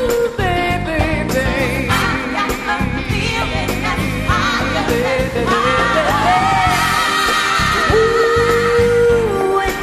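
Live pop-soul band with a woman singing lead, her voice wavering with vibrato through runs and holding one long note near the end.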